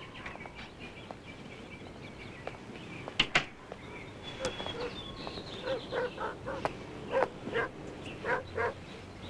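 Birds chirping outdoors. Two sharp knocks come a little over three seconds in, and in the second half a run of short animal calls comes at about two a second.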